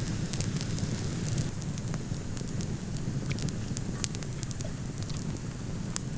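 Wood campfire crackling, with frequent sharp pops over a steady low rumble.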